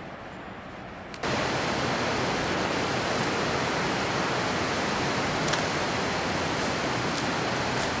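Steady rushing roar of a waterfall, coming in suddenly with a click about a second in, over a quieter hiss before it.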